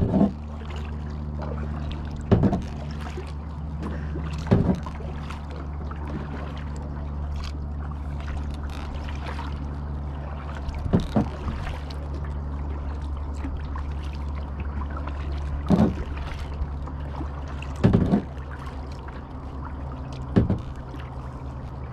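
Kayak paddle blades dipping and pulling through calm lake water, one short splash per stroke, every couple of seconds at first and then at longer gaps. A steady low hum runs underneath.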